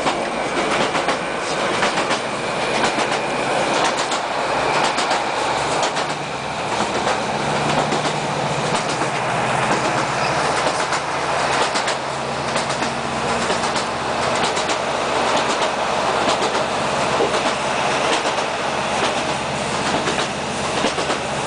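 Interior of a ScotRail Class 156 diesel multiple unit running at speed. The wheels click steadily over the rail joints over a continuous rolling rumble, and an underfloor diesel engine note comes in partway through.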